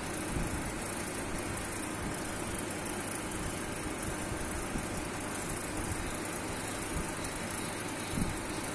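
A centrifugal pump test rig running with a steady noise while it delivers water into the collecting tank. A small soft knock comes near the end.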